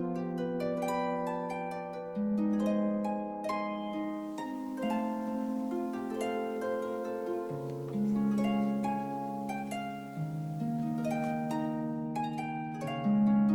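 Background music with harp-like plucked notes over held chords, quick runs of notes near the start and near the end.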